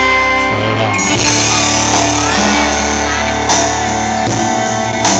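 Instrumental backing-track music with guitar playing through the PA, with no singing over it.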